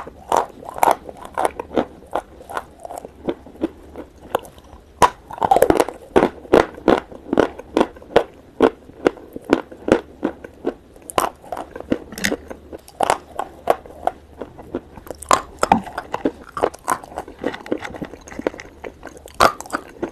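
Close-miked crunching and chewing of hard white chalk sticks: sharp crunches come several times a second, thickest about five seconds in.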